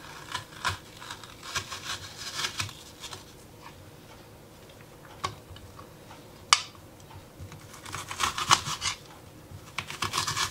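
Knife slicing a red onion on a plastic cutting board: quick runs of crisp cuts tapping the board, in bursts at the start, about two thirds through and near the end. A single sharp knock a little past the middle.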